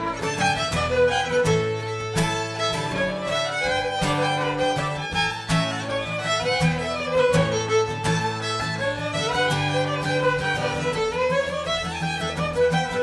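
A group of fiddles playing a traditional fiddle tune together, with guitar chords strummed underneath.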